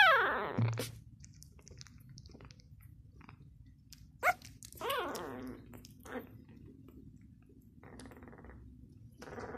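Six-day-old Labrador puppy crying: a loud squeal that falls steeply in pitch at the start, then a softer falling cry about five seconds in, with small clicks and rustling between.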